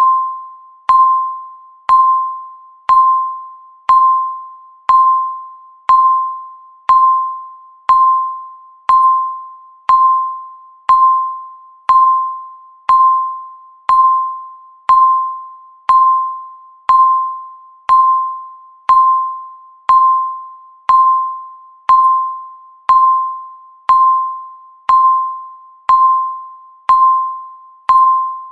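Electronic countdown-timer beep sounding once every second: a short single-pitched tone that starts sharply and fades away before the next one.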